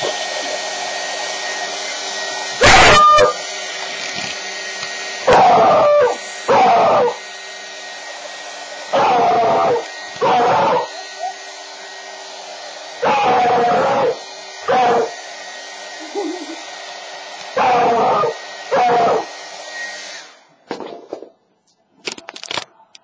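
Hair dryer running steadily while a frightened beagle puppy barks at it again and again, the barks mostly coming in pairs. The dryer cuts off near the end.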